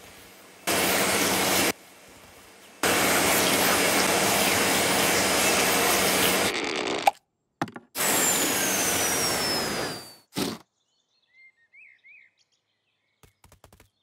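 A cartoon cleaning machine with a long nozzle blasting air in on-off bursts of loud rushing noise. The last long blast carries a whistle falling in pitch and dies away, followed by a short puff. A few small chirps and light taps follow.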